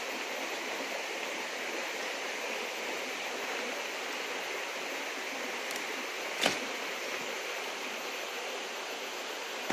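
Small forest stream running with a steady, even rush of water. A single sharp click cuts through a little past halfway.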